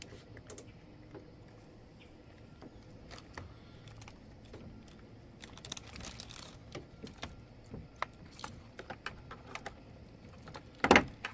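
Light clicks and rattles of plastic toy kitchen parts being handled, with a louder snap near the end as a piece is pushed into place.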